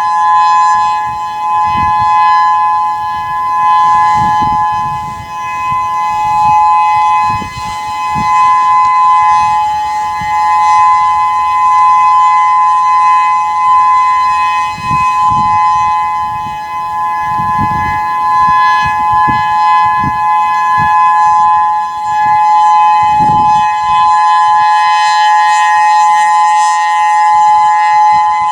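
Whelen 3016 electronic outdoor warning siren sounding a steady two-note alert tone, swelling and fading in loudness every few seconds as the rotating horn turns.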